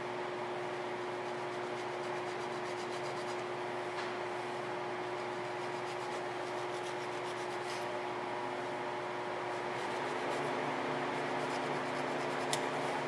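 A blade scraping and sawing at the sticky tire-plug strip in many short strokes, trimming the excess down toward the tread, over a steady hum.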